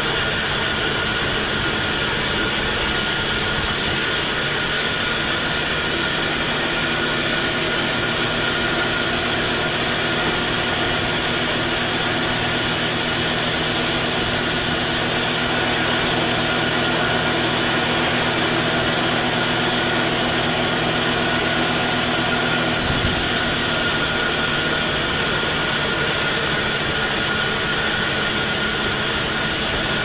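Large band sawmill running steadily, its blade sawing through a big log with a loud hiss and a high-pitched whine. A low hum underneath cuts out with a short click about three-quarters of the way through, while the saw keeps running.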